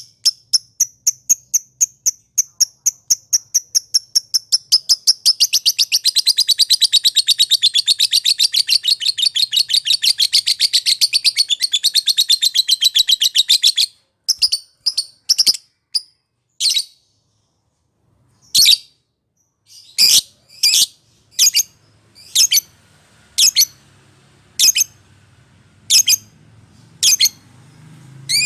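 Lovebird calling. A run of rapid, high, repeated chirps speeds up into a long continuous chattering trill, the "ngekek" prized in lovebird song training. The trill stops abruptly about halfway through and gives way to single sharp, shrill calls about one a second.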